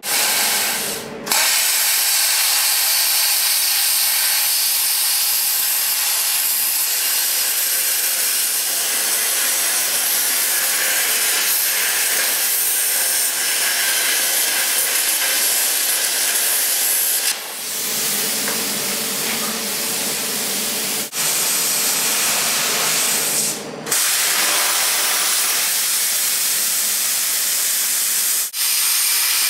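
Harbor Freight plasma cutter torch cutting through a 6-inch steel I-beam: a loud, steady hiss. The hiss stops for a moment about a second in, then breaks briefly a few more times later.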